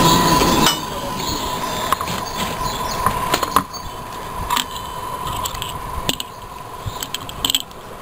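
Scattered light clicks and knocks as a plastic spool and a remote control's circuit board are handled and set down on the bench, over a thin steady whine. A loud rumbling noise cuts off under a second in.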